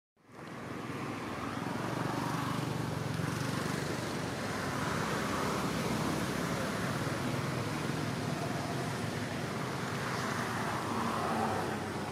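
Steady background rumble with a hiss over it, swelling and easing slowly, of the kind road traffic makes.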